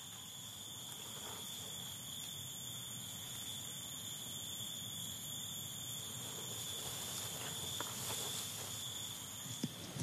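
Night insects trilling in a steady chorus, one continuous high tone, with a few faint clicks near the end.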